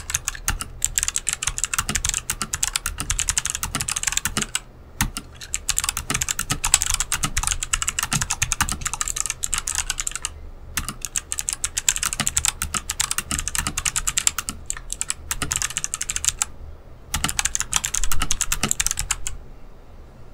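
Fast typing on a Rakk Lam-Ang Pro mechanical keyboard with Kailh Box White clicky switches: dense runs of key clicks, broken by short pauses about five, ten and sixteen seconds in, and thinning out near the end.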